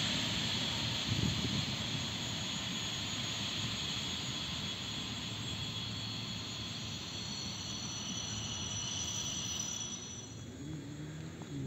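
Electric commuter train running past on the tracks, its rolling rumble and high whine fading steadily as it moves away. A low steady tone comes in near the end.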